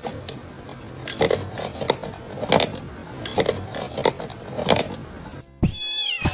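A steel adjustable wrench clinking in a run of sharp, irregular metallic taps, about eight of them. Near the end comes a short pitched sound that slides down in tone.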